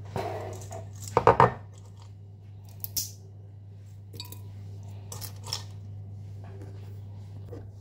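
Dry ingredients dropped by hand into a glass blender jar of chopped carrots: a loud clatter about a second in, then a few lighter clicks and taps against the glass and a bowl. A steady low hum runs underneath.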